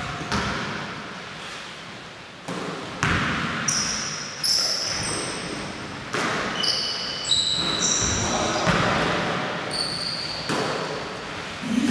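Basketball bouncing on a hardwood gym floor: irregular thuds echoing through the hall, with several short, high-pitched sneaker squeaks from players cutting on the court.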